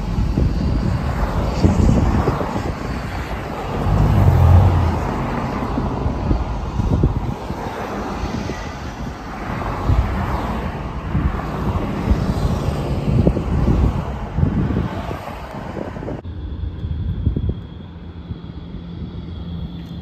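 Road and wind noise of a moving car heard from inside the cabin: a loud, rough rumble that surges around four seconds in. About four seconds before the end it cuts abruptly to a quieter, steady background with a faint low hum and a thin high whine.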